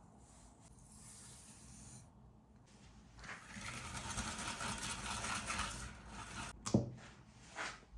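Kitchen preparation sounds: after a quiet start, a few seconds of dense scraping, then two short knocks near the end.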